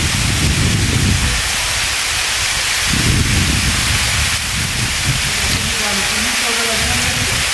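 Dindefelo waterfall falling from the cliff into its plunge pool: a steady hiss of falling water, with low rumbling that comes and goes. Faint voices come in near the end.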